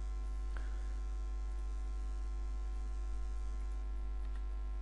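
Steady electrical mains hum with a buzz of many steady overtones from the recording setup, and one faint mouse click about half a second in.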